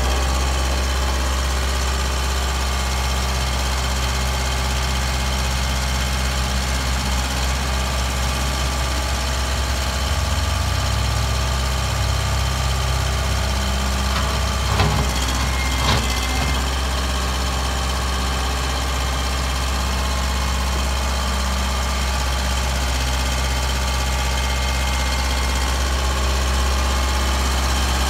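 Kubota M7040 tractor's four-cylinder diesel engine idling steadily. Two short knocks sound about halfway through.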